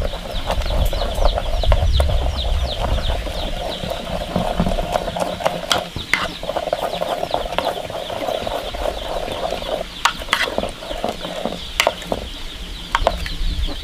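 Wooden chopsticks stirring hulled mung beans and water in an aluminium pot, with a few sharp clinks against the pot about six, ten and twelve seconds in. Throughout, small birds chirp rapidly and continuously.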